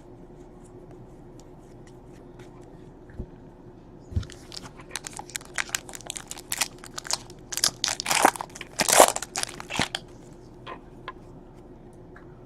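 Trading card pack wrapper being torn open and crinkled, a dense run of sharp crackles and rustles that starts about four seconds in and stops a couple of seconds before the end.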